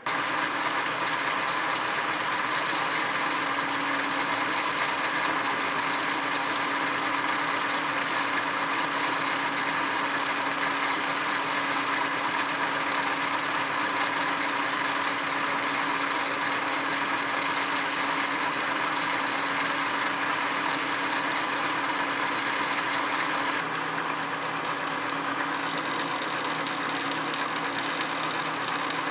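Boye & Emmes 16-inch engine lathe with its 5 HP drive running under power: a steady mechanical whir with gear whine from the head and drive. After about twenty-three seconds it gets slightly quieter and its tone changes a little.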